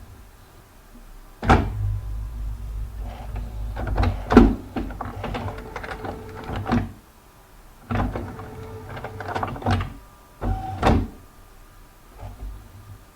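Computer scanner running its motor and carriage in two passes. Each pass starts suddenly with a clunk and runs as a low hum with rapid clicks and a steady tone, then ends with a knock.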